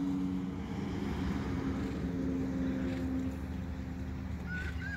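A steady low motor hum made of a few held tones over an outdoor rumble, with a faint high tone coming in near the end.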